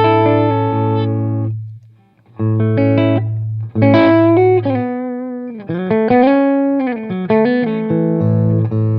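Electric guitar played through an Oldfield 6715 all-tube amp with two EL84 power tubes. Chords ring out, stop briefly about two seconds in, then start again, with string bends in the middle and a chord left to ring near the end.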